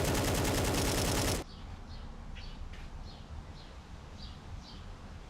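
A loud, rapid machine-gun-like rattle, likely from a tool, cuts off suddenly about a second and a half in. Then come faint, short birds' chirps repeating every half second or so.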